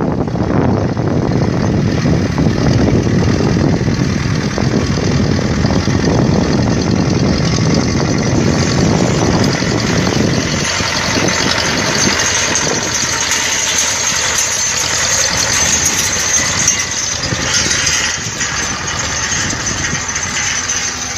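Władimirec T-25A2 tractor's two-cylinder air-cooled diesel running. About ten seconds in, its deep rumble drops away and a higher hiss comes forward.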